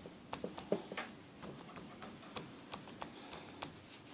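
Faint, irregular fingertip taps and clicks on a Samsung Galaxy S3 smartphone, about a dozen spread over four seconds, as the frozen, unresponsive phone is tried.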